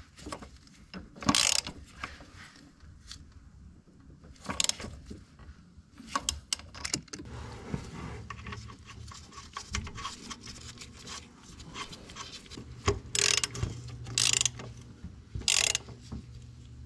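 Hand ratchet clicking in short runs as 14 mm motor-mount nuts are cranked tight with a socket and extension.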